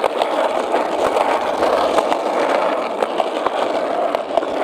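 Skateboard wheels rolling on a concrete path: a steady rolling rumble with scattered sharp clicks.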